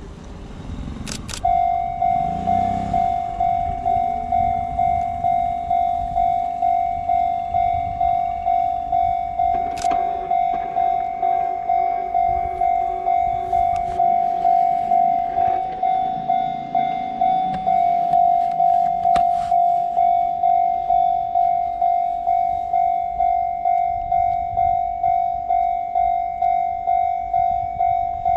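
Railway level-crossing warning bell that starts about a second and a half in and rings one steady, pulsing tone at about two strikes a second. A low rumble rises and falls underneath it twice.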